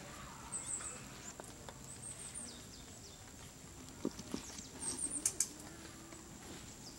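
Quiet wet-weather outdoor ambience: small birds chirping in short high calls a few times, and a handful of sharp ticks of dripping water around the middle.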